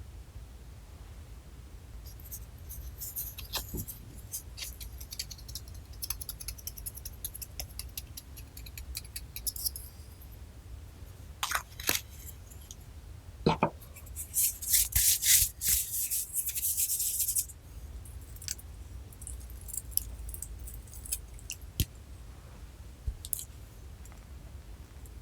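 Slime being worked by hand: a run of sticky, crackling clicks and pops, with a denser, louder stretch of crackling about two-thirds of the way through.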